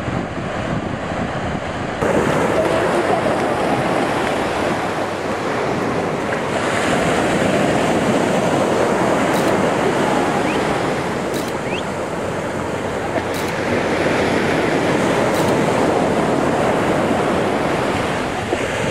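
Ocean surf washing onto the beach, with wind buffeting the microphone. It gets louder about two seconds in, then slowly swells and eases.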